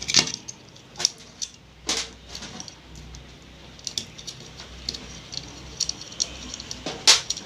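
Clicks and light metallic clatter of a mixer grinder's electric motor being taken apart by hand, its loosened screws and housing parts handled. Sharper knocks come at the start, about one and two seconds in, and near the end.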